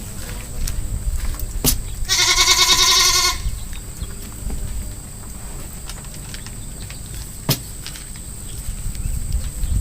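A goat bleating once, a loud wavering call lasting just over a second, about two seconds in. Two sharp clicks, one just before the bleat and one later.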